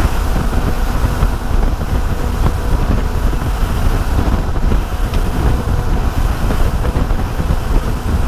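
Bayliner 3055 cruiser running at speed: a steady, loud rush of wind buffeting the microphone over the engine drone and water noise.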